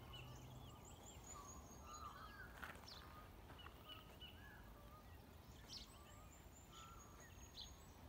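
Faint dawn chorus of several songbirds: scattered chirps and whistles at different pitches, with a thin, very high trill twice.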